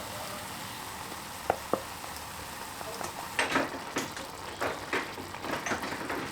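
Food sizzling in a frying pan, with two light clicks and then a utensil stirring and scraping the food around the pan for about three seconds.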